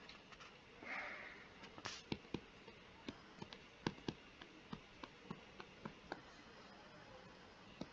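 Stylus on a tablet screen while handwriting letters: faint, irregular clicks and taps, a few a second, with a brief soft hiss about a second in.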